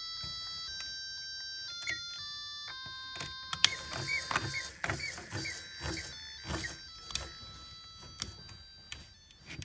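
A simple beeping tune of single tones stepping from note to note, from a Lego Mindstorms brick's speaker. Small Lego electric motors whir, and Lego parts give many short clicks and knocks from about three and a half seconds in.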